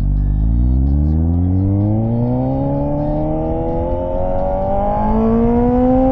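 Suzuki motorcycle engine accelerating in one long pull, its pitch rising steadily without a gear change.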